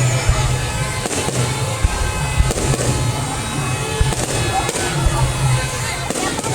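Fireworks going off in a series of sharp bangs at irregular spacing, with music playing underneath.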